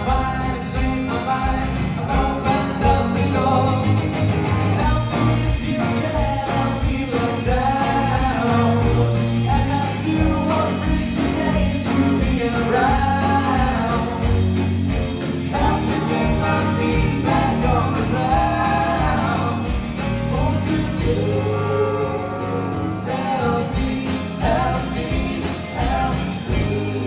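A live rock band playing a song, with electric guitars and drums under a sung lead vocal.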